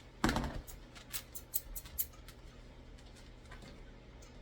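A short rustle, then a few light clicks over the next two seconds, from grooming tools working a puppy's coat; after that only faint room tone.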